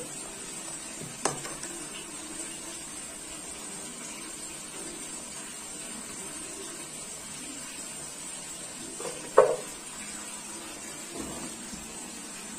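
Steel ladle stirring simmering paal kozhukattai (rice dumplings in coconut milk and jaggery) in a metal pot, over a steady soft hiss. The ladle knocks against the pot lightly about a second in and sharply about nine seconds in.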